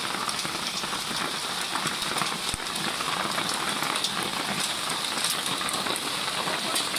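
Steady thunderstorm downpour: a dense hiss of rain, dotted with the small ticks of individual drops striking.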